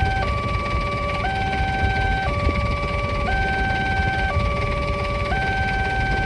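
Railway level-crossing warning siren sounding its two-tone alarm, switching between a higher and a lower pitch about once a second, with a steady higher tone held beneath it.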